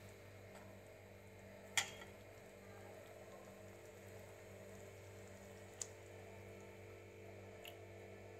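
Low steady hum with a sharp metallic clink about two seconds in, as the steel ladle is set down against the aluminium pot of curry, and two fainter ticks later.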